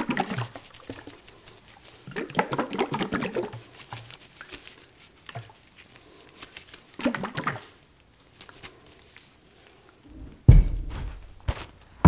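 Glass mason jar of dried herbs and olive oil being shaken by hand, the oil sloshing in several short bouts as the botanicals are mixed into the oil for an infusion. A loud thump comes near the end.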